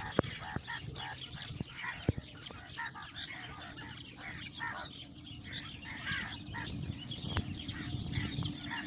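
A flock of birds chattering, with many short calls overlapping one another, and a few sharp clicks.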